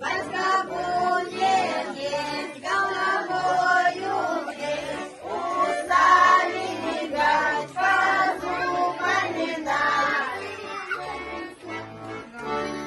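A children's folk ensemble singing a Russian Christmas carol (koliadka) together, accompanied by a button accordion playing a steady bass-and-chord beat of about two a second.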